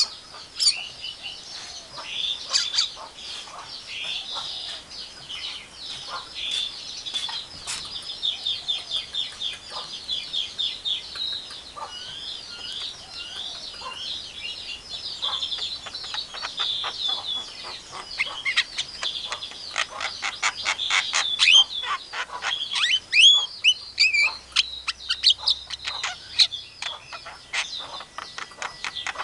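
Javan myna chattering in a dense, rapid run of squeaky notes, whistles and clicks, quickening into fast clicking notes about two-thirds of the way through.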